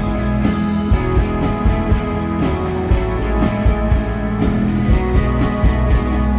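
Live rock band playing an instrumental passage: electric guitar, bass guitar and drum kit with a steady beat, no singing.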